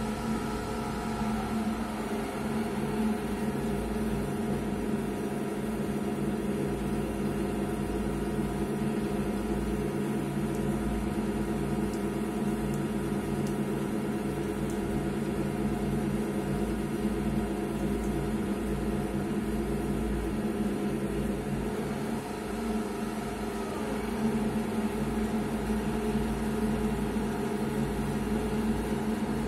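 Cormak Z5020 Vario 1100 W drill press motor and spindle running with a steady hum. About a second or two in the pitch shifts as the speed is lowered with the variable-speed lever from about 2100 rpm to about 500 rpm, and it shifts again near the end as the speed is raised to about 1000 rpm.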